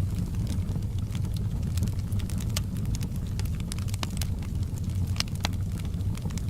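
Fireplace fire burning: a steady low rumble with irregular sharp crackles and pops.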